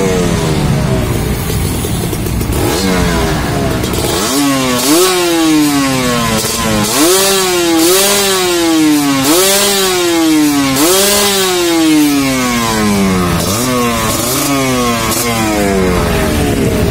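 Kawasaki Ninja RR 150's single-cylinder two-stroke engine, breathing through its stock exhaust with the internals bored out, being revved in repeated throttle blips. Each blip snaps the pitch up and lets it sink back slowly, about once a second for most of the stretch.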